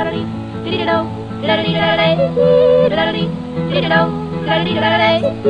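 Country song with a yodelled refrain over guitar accompaniment: held notes that break suddenly from one pitch to another.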